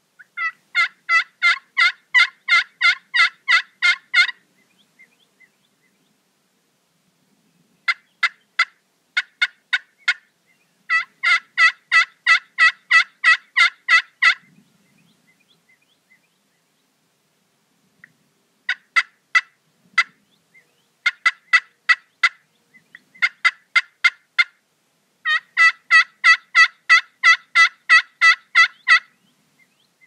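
Wild turkey calling in bouts of evenly spaced, repeated yelp-like notes, about three to four a second, with short pauses between the bouts.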